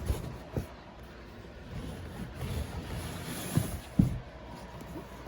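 An old cardboard box being opened by hand: a few dull knocks and bumps, the loudest about four seconds in, with some soft scraping and rustling of cardboard between them.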